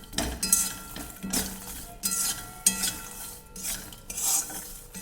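A spoon scraping and clinking around a pot, stirring roasted makhana (fox nuts) with spice powders, in strokes about a second apart.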